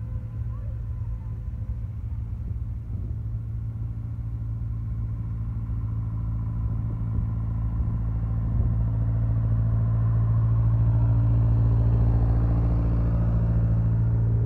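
Vintage tractor engine running steadily as the tractor drives up close and past, growing louder and loudest near the end.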